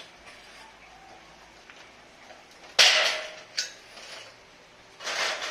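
Lengths of sheet-metal furring channel clattering and scraping against each other as they are handled. There is a sudden loud metallic rattle about three seconds in, a sharp click soon after, and another rattle near the end.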